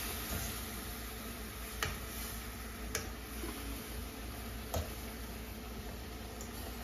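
A metal utensil clicking against the cooking pot three times as food in it is turned, over a steady low hiss.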